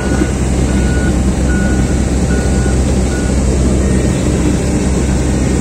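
Big diesel engine of a Komatsu PC2000 mining excavator running steadily, with a warning beeper sounding short beeps about once every 0.8 seconds that stop about three seconds in.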